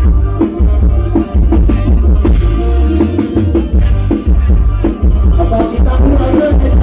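Loud live band music played through a Thai rot hae sound-truck system, with a heavy pulsing bass beat under a melody.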